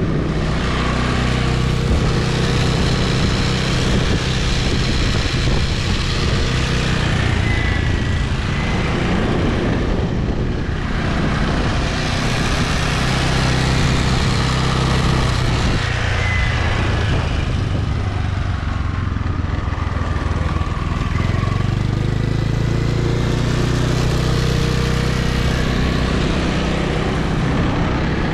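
Small Honda scooter engine running steadily under way, mixed with the rush of air and road noise over the pole-mounted action camera's microphone; the rush thins briefly a few times.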